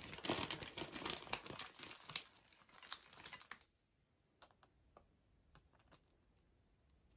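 Plastic bag of grated cheese crinkling as handfuls are taken out. The dense rustling lasts about three and a half seconds, then gives way to a few faint ticks.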